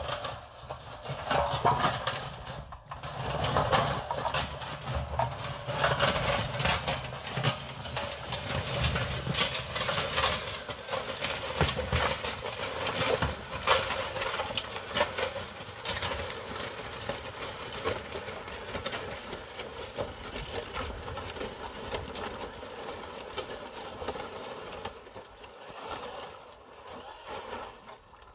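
HELIX Neptune screw-propelled amphibious robot driving on its rotating screw pontoons: a steady motor and drive whine with dense crunching and crackling as the screws churn through wet gravel and mud. About halfway through, the crunching thins to a steadier running sound as the robot moves out into the water.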